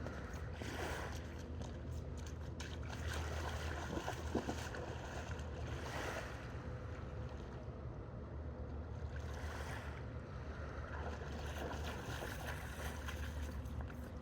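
Sea waves washing steadily, with a low rumble of wind on the microphone.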